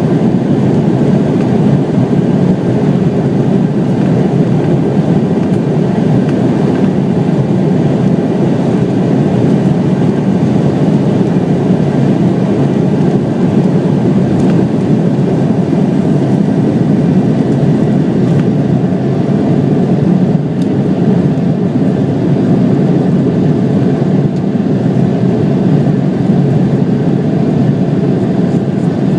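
Embraer 170 airliner's CF34 turbofan engines and rolling noise, a steady loud rumble that neither rises nor falls.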